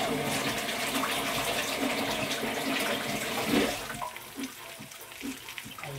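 Kitchen tap running into the sink as hands wash under it, turned off a little over halfway through. After that the faint crackle of fish frying in oil in a pan is left.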